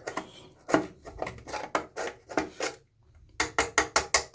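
Pliers crunching and clicking on a steam humidifier's metal electrodes, breaking off limestone scale. A run of irregular sharp clicks and knocks is followed near the end by a quick burst of about seven clicks.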